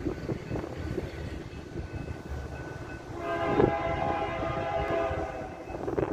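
Air horn of a BNSF SD70MAC diesel locomotive sounding one long blast of several tones at once, starting about three seconds in and lasting about two and a half seconds, over a low rumbling background.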